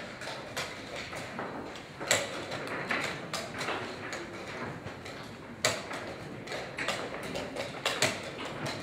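Tournament-hall ambience: scattered sharp knocks of chess pieces set down and chess clocks pressed at neighbouring boards, the loudest about two seconds in and again halfway through, over a steady room hum.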